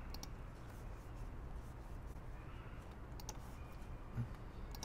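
A few faint computer mouse clicks over quiet room hiss: one near the start, a pair about three seconds in, and two more near the end.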